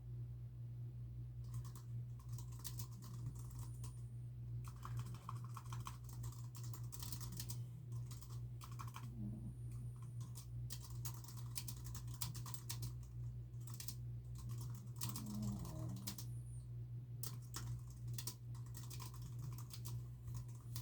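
Typing on a computer keyboard: runs of quick key clicks in bursts of a few seconds, broken by short pauses. A steady low hum runs underneath.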